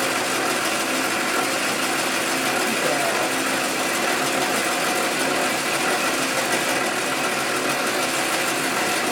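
Metal-turning lathe running steadily, its motor and headstock gearing turning a long bar while the tool takes a very light two-thousandths finishing pass that is barely cutting anything.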